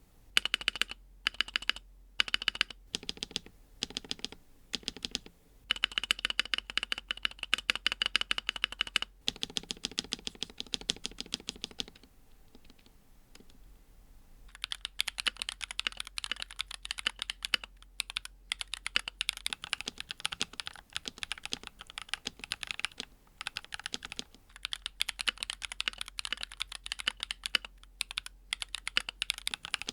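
NuPhy Halo-series mechanical keyboard being typed on. It starts with a few separate keystrokes, then runs into fast continuous typing, pauses briefly just under halfway through, and resumes.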